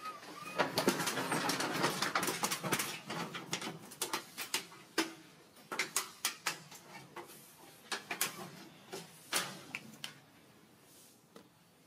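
Irregular sharp taps and knocks on a wooden plank deck as macaques move about on it, with a rustling noise in the first two or three seconds.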